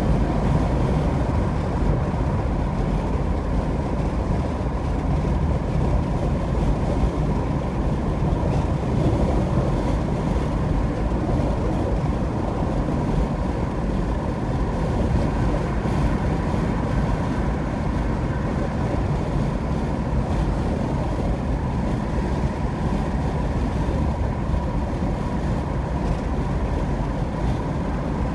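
Steady road noise of a car cruising at highway speed: tyre rumble and engine with a faint steady hum, unchanging throughout.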